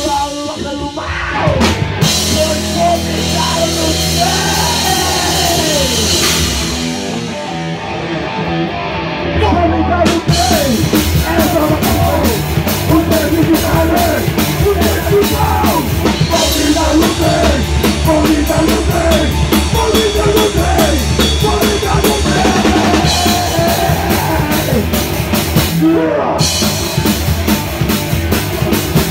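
A rock band playing live in a rehearsal room: drum kit with cymbals, electric guitars and a singer on a microphone. The full band comes in louder about ten seconds in.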